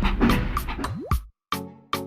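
Music with a quick percussive beat; about a second in a rising sweep plays and the music cuts off abruptly, then comes back as short separate hits.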